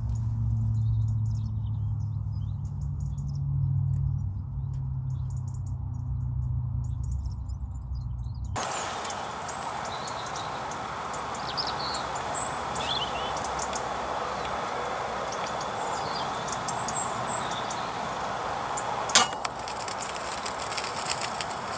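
Bird chirps over a low rumble, changing about eight seconds in to a steady hiss with more chirps. About nineteen seconds in comes a single sharp crack of a pre-charged pneumatic air rifle firing.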